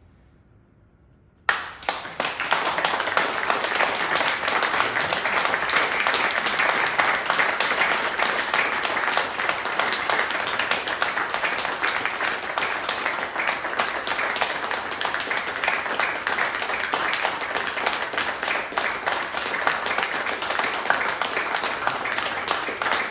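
Audience applauding, breaking out suddenly about a second and a half in after a brief hush and keeping up steadily.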